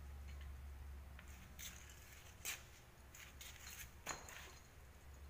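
Faint scuffs and clicks of a cat's paws and claws on the floor as it bats and pounces on a mouse, with two sharper clicks around the middle and about a second and a half later, over a low steady hum.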